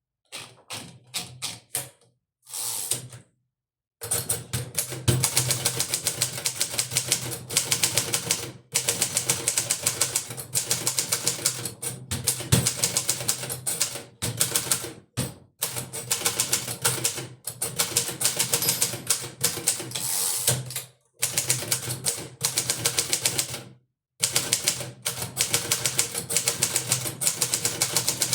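Hermes 2000 manual portable typewriter being typed on at speed: rapid key and typebar strikes in long runs broken by short pauses. Steady typing starts about four seconds in, after a few separate sounds.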